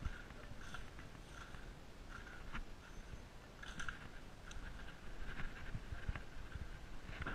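Footsteps crunching on a debris-covered floor, irregular, about one or two steps a second, with small sharp clicks among them.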